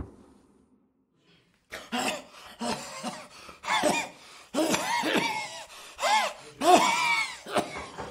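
A sharp knock, then after a short pause a person coughing in a series of fits, the voice rising and falling in pitch with each one.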